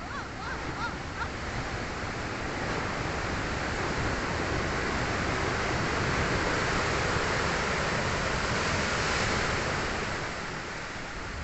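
Sea surf: a wave breaking and washing up the shore, swelling to its loudest in the middle and easing off near the end.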